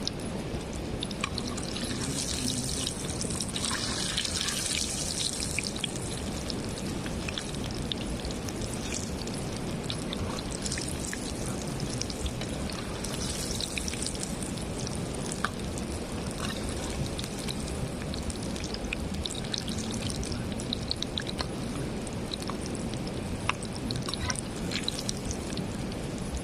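Besan-battered stuffed paneer pakoras deep-frying in hot oil: a steady sizzle with many small crackles and pops.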